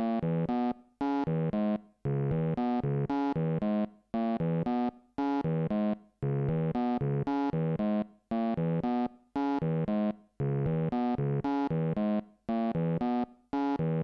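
Synth riff from an Elektron Octatrack used as a synth engine on a looped single-cycle "bird" waveform: short phrases of quick notes hopping between a few pitches, repeating in a pattern about every two seconds with brief silent gaps between phrases.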